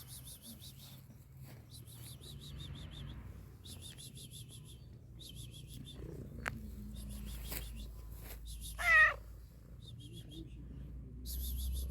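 Domestic cat purring steadily, with one short wavering meow about nine seconds in. High chirping trills come and go in several short bursts.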